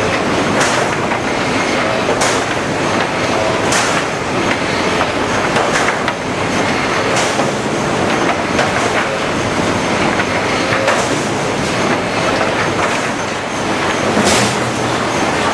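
HewSaw R200 chipper-canter sawing line running: a loud, dense mechanical clatter with sharp clacks every second or two.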